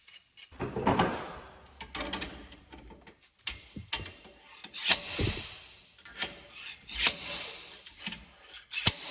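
Slide hammer with a hook attachment being worked to pull an axle bearing out of a GM 10-bolt rear axle housing: sharp metal clanks about once a second, each with a short ringing scrape.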